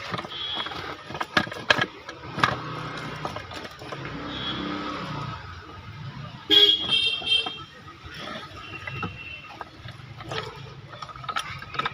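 Street traffic with a vehicle horn sounding briefly about halfway through, the loudest sound here. Scattered sharp metallic knocks from work on the repair are heard around it.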